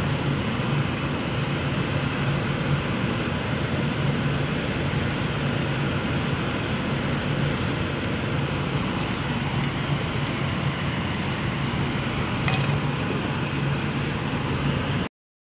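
Steady sizzling hiss from the stir-fry in the hot pan, with a light clink of the glass lid going onto the pan near the end.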